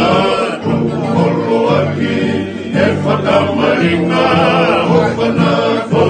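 A group of men singing a Tongan song together in harmony, accompanied by a strummed acoustic guitar and ukulele.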